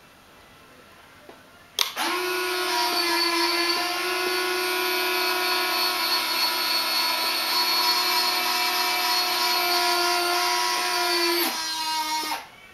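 Lado electric retract units on an RC F-15C model jet retracting the landing gear. A click, then a steady electric-motor whine for about ten seconds. Near the end it drops to a slightly lower whine for about a second and then cuts off as the gear finishes stowing.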